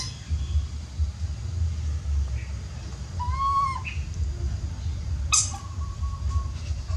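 Baby monkey crying for its mother with two long, high whistling calls. The first arches up and down about three seconds in; the second starts with a sharp squeal a little after five seconds and is held steady for about a second. A steady low hum runs underneath.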